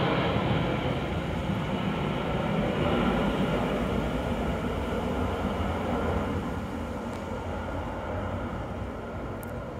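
Boeing C-17 Globemaster III's four turbofan engines passing overhead and moving away: a steady jet rumble whose high hiss fades as it grows gradually quieter.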